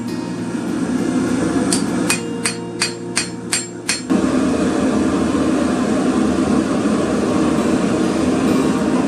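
Hammer striking a steel bar on an anvil, a run of about six blows at roughly three a second. A little after four seconds a steady rushing noise takes over.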